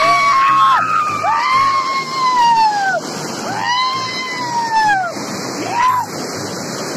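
Music: a high melodic line, sung or played, in long phrases that each rise quickly and then slide down, over a steady hiss.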